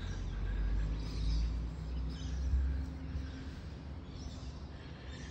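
A low engine rumble of a passing vehicle, with a steady hum in it, swells over the first couple of seconds and then eases off. A few faint, short bird chirps sound above it.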